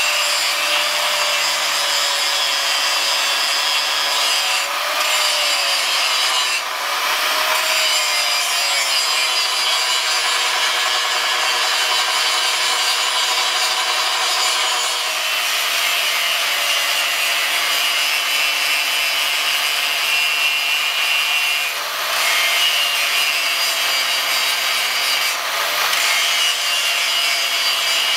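Angle grinder with a flap disc grinding a 52100 carbon-steel knife blank: steady grinding with the motor's whine wavering and a few brief dips where the load changes.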